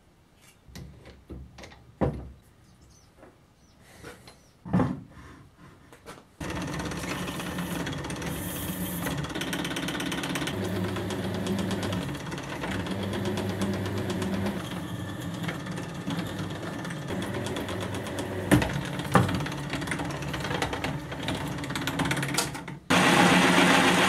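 Scattered metal clinks and knocks of tools being handled, then a drill press starts about six seconds in and runs steadily, drilling a small hole in a steel part. Near the end it turns louder and harsher as a larger bit cuts into the steel.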